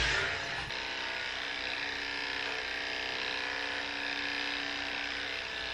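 Cordless electric dog clippers running with a steady hum. A louder noise dies away in the first second.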